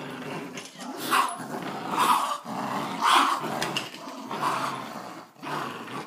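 Dogs growling in rough play, a Dogo Argentino puppy and a Maltese. The growling is continuous, with about four louder outbursts roughly a second apart.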